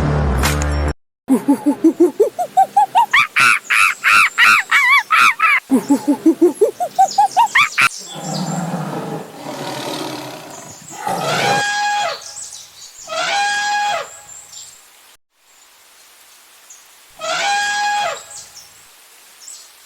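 Recorded wild-animal sound effects from a dark ride's speakers: a fast run of pulsed calls that climbs in pitch, then three separate longer calls a few seconds apart.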